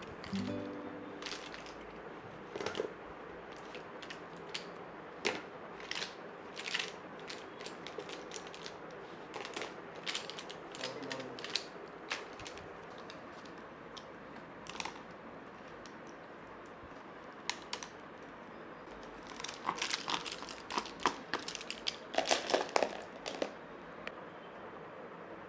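Scattered light taps, clicks and crinkles of small objects being handled, over a steady faint room hiss, with a quicker flurry of clicks about twenty seconds in.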